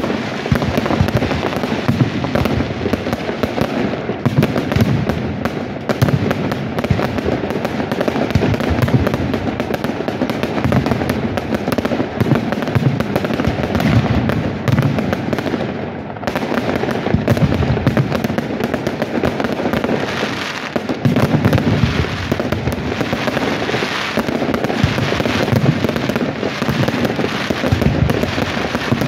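Aerial fireworks display: a continuous, rapid barrage of shell bursts and crackling that eases briefly about halfway through.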